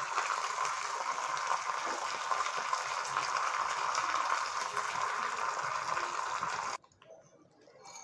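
Hot oil sizzling steadily as curry leaves, bay leaf and cinnamon fry in a small tempering pan, the tempering for a kadappa; the sizzle cuts off suddenly about seven seconds in.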